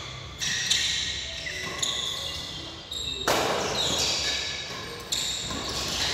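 Badminton rackets striking the shuttlecock in a doubles rally: sharp hits a second or more apart, each ringing on in the echoing hall, the loudest about halfway through and near the end.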